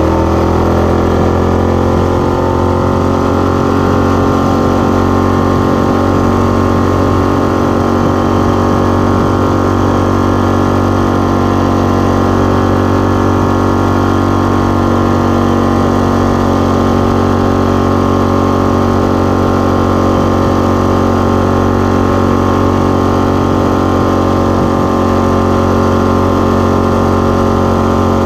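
Coleman BT200X mini bike's 196cc single-cylinder four-stroke engine running under way. Its pitch rises in the first second, then holds steady at cruising speed.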